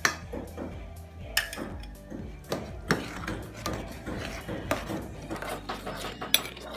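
Metal ladle clinking and scraping against the inside of an aluminium pot while stirring spaghetti sauce: irregular knocks, a few sharper clinks among them.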